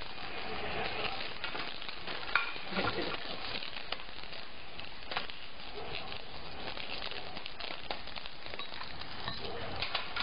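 Steady hissing noise with scattered light clicks and knocks, the sharpest about two seconds in: plastic baby rattles being handled and knocked against a metal tray.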